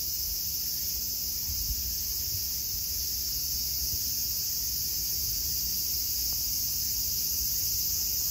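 Steady high-pitched drone of an insect chorus with no breaks, over a faint low rumble.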